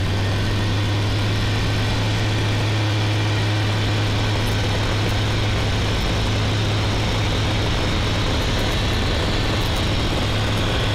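Eurofox microlight's engine and propeller running steadily at full power during the take-off run and climb-out, heard in the cockpit through the intercom.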